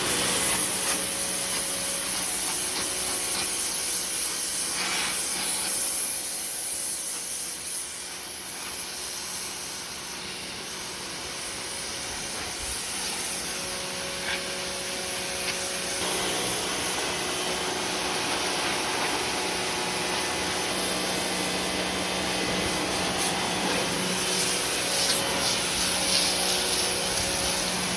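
Electric pressure washer running: the motor and pump hum steadily under the loud hiss of the high-pressure water jet spraying, which eases off a little partway through and then picks up again.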